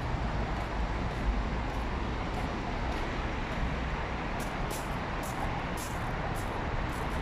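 Steady city road traffic: a continuous rumble of cars and minibuses passing on nearby streets.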